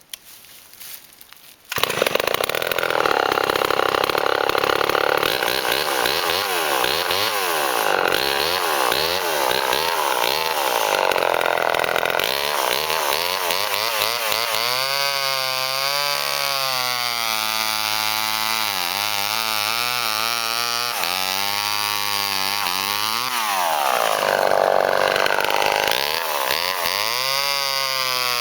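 Vintage Homelite two-stroke chainsaw running loud, cutting wood, its engine pitch rising and falling again and again as it revs and bogs down under load. It comes in abruptly about two seconds in.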